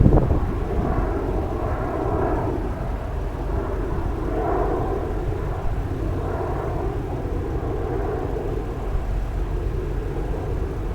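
Airplane flying past overhead: a steady engine rumble that swells and fades slowly.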